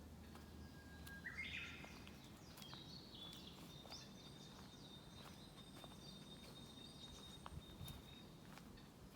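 Faint songbird calls in a forest: a short burst of notes about a second and a half in, then a thin high note held steady for about five seconds.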